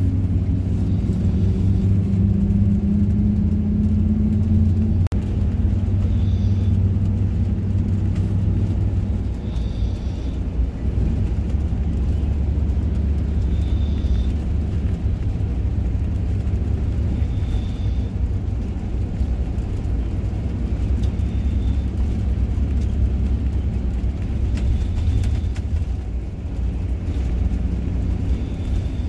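Intercity bus running at road speed, heard from inside the cabin: a steady low drone of engine and road noise. The engine note is clear for the first few seconds, then gives way to a broader rumble. A faint short high tone recurs every three to four seconds.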